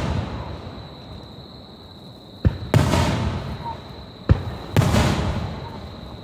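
Aerial firework shells bursting overhead: two loud booms, each with a sharp crack just before it and a long rumbling tail, while the rumble of an earlier burst dies away at the start.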